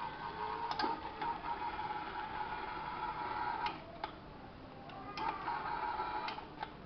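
Small electric drive motor of a portable straight-line cutting carriage running with a steady whine and a few sharp clicks. The whine drops away for about a second and a half in the middle, then comes back.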